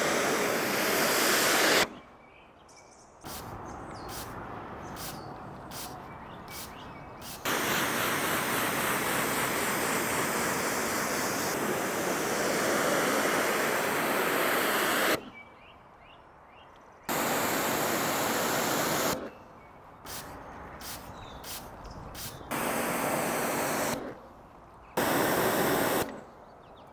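Water jet from a hose spray gun rinsing a car's paintwork: a loud, even hiss that starts and stops several times as the trigger is pressed and released. In the quieter gaps there are short clicks.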